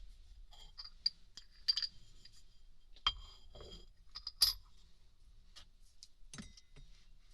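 Small glass and metal objects clinking and tapping against each other in a series of sharp clicks, some with a short high ring, the loudest about four and a half seconds in. This is ear-care tools and bottles being set out for an ear-cleaning session.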